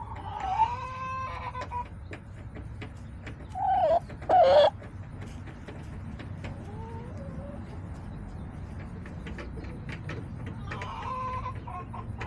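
Backyard hens clucking and calling: a drawn-out call at the start, two loud sharp squawks about four seconds in, then quieter calls later, with small clicks throughout.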